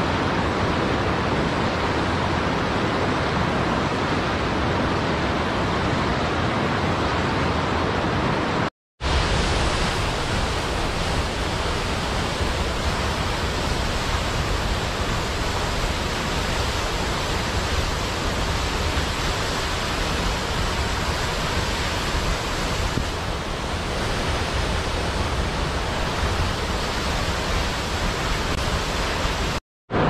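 Steady rushing of a mountain stream and waterfall, an even wash of water noise. It breaks off into silence twice, briefly, about nine seconds in and near the end, and after the first break it is deeper.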